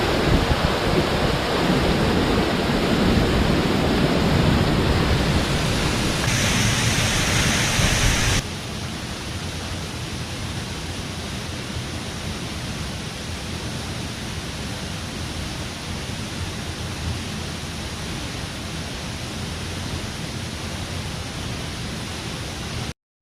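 Steady rushing of water falling at Haew Suwat waterfall. About eight seconds in, it abruptly drops quieter and carries on steadily.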